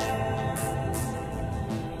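Background music of sustained, layered tones.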